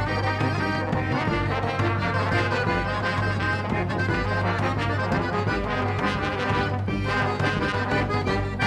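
Swing-style music with brass (trombone and trumpet), playing steadily with a regular beat.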